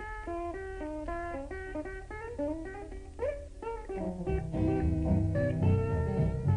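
String-band instrumental blues in D, led by a guitar picking quick single-note runs. A fuller rhythm accompaniment joins in about four seconds in.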